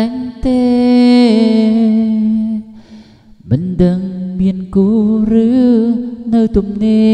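A singer's voice holding long, slightly wavering notes, amplified through an MFX mixing desk, with a short break near the middle before the singing resumes.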